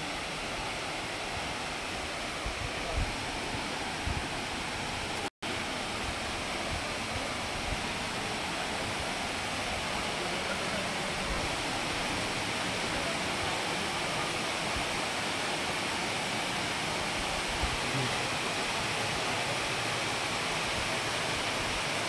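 Steady rushing of a three-tiered waterfall, an even hiss of falling water, with a few soft low knocks in the first four seconds. The sound drops out for an instant about five seconds in.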